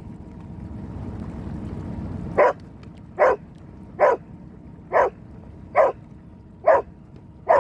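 Dog barking, seven sharp barks at an even pace of a little more than one a second, starting a couple of seconds in, over a steady low rumble.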